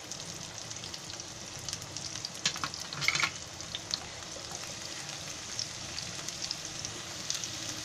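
Chopped onion sizzling in hot butter and oil in a non-stick frying pan: a steady hiss with scattered crackles, louder spitting about three seconds in. Later on, a wooden spatula stirs the onion through the fat.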